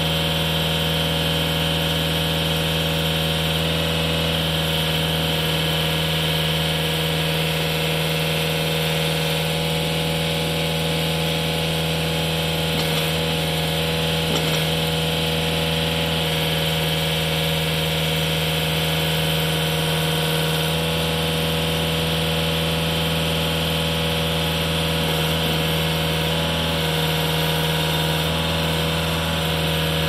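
Case 560 trencher's engine running at a steady speed while its D125 backhoe's boom and bucket are moved, the note shifting slightly a few times.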